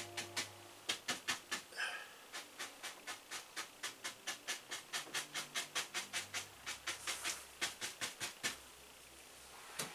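Bristle brush dabbing against a stretched canvas on an easel in quick, even taps, about four a second, stippling in the sheepdog's dark fur with oil paint. The taps stop about a second before the end.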